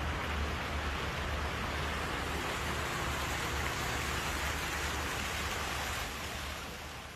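Sewage water gushing into a river: a steady rushing of water with a low rumble underneath, fading out near the end.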